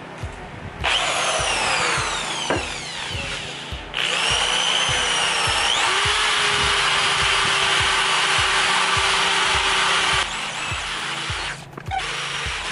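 Electric drill spinning a wire cup brush against the aluminium cylinder head of a scooter engine: a whining motor over a hissing scrub of wire on metal. It starts about a second in, eases off briefly, runs loudest and steadiest for about six seconds from around four seconds, then drops back. Background music with a steady beat runs underneath.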